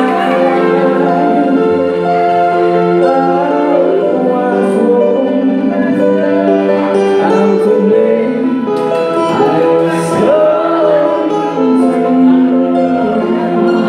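A man sings live through a microphone and PA with a small band behind him. An electric guitar and a keyboard hold long chords under a slow, wavering vocal line.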